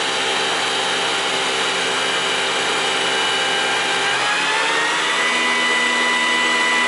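Mitsui Seiki HJ63A horizontal machining center spindle running at speed with a steady multi-tone whine. About four seconds in, the whine rises in pitch over about a second as the spindle speeds up, then holds steady at the higher pitch.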